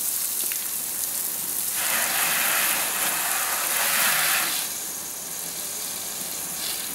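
Water from a garden hose spraying onto a car's bodywork and windows, a steady rain-like hiss that is stronger from about two to four and a half seconds in, then softer.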